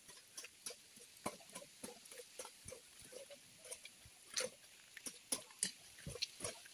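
Footsteps on a dry dirt track, soft knocks and scuffs at about two a second.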